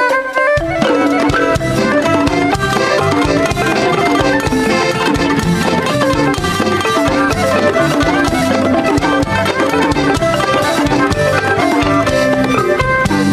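Instrumental music with percussion and a steady beat, entering about half a second in.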